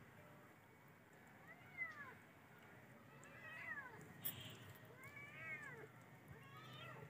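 A cat meowing faintly four times, each call rising and then falling in pitch. There is a short click about four seconds in.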